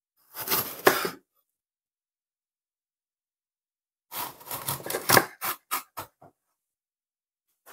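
Chef's knife cutting around the stem of a raw red bell pepper on a bamboo cutting board: a run of crisp crunching cuts about four seconds in, ending in a few short snaps as the blade goes through the firm flesh. A shorter burst of handling noise comes just before, about half a second in.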